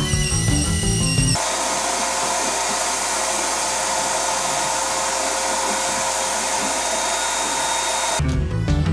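Background music, then a shop vacuum running steadily for several seconds while it sucks up wood chips, cutting off as the music returns near the end.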